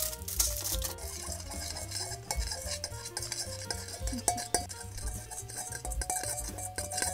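A spoon stirring salad dressing in a small dish, with many quick irregular clicks and scrapes against its sides as the dressing is mixed into an emulsion.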